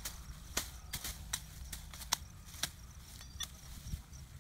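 Shrub stems and twigs snapping and crackling as brush is pulled and broken by hand, a sharp crack every half second or so at an uneven pace, over a low rumble.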